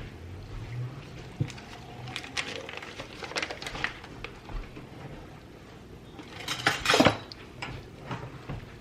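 Scattered clinks and knocks of a metal roaster-oven pan as whole raw chickens are set in it and arranged, with a louder cluster of knocks about seven seconds in.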